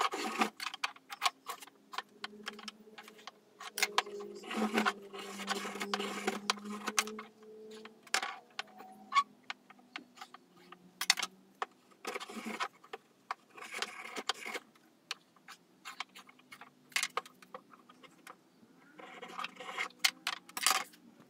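Spokeshave blade shaving a wooden canoe stem, the strokes trailing off in the first half second, then scattered clicks, taps and short scrapes of hand tools being picked up, set down and adjusted on the bench. Near the end comes a denser run of scraping on the wood, and a faint steady hum sits underneath for much of the time.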